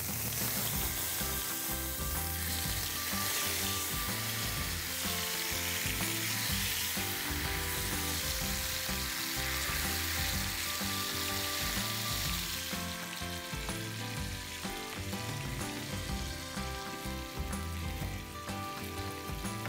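Marinated rawas fish steaks shallow-frying in hot mustard oil in a pan, a steady sizzle as the pieces are laid into the oil.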